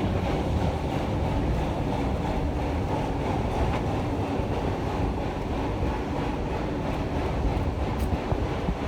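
Steady low rumble of a heritage railroad passenger train rolling along the track, heard from aboard the train.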